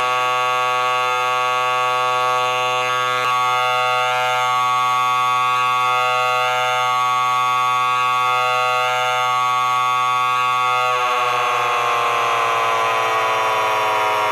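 Loud, harsh electronic buzzing tone, several pitches sounding together and held steady without a break. About eleven seconds in, its pitch begins to slide slowly downward.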